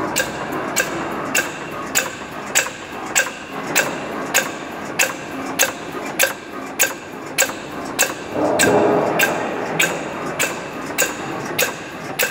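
SCSP600 DR bag-making machine running, with a sharp clack about every 0.6 seconds as it cycles, over a steady mechanical hum. A brief louder rushing sound comes about two thirds of the way through.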